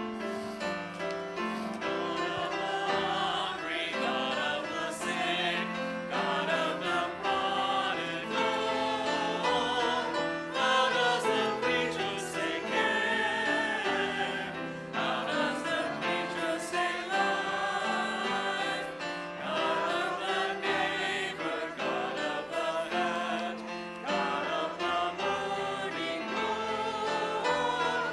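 Church congregation singing a hymn together with instrumental accompaniment.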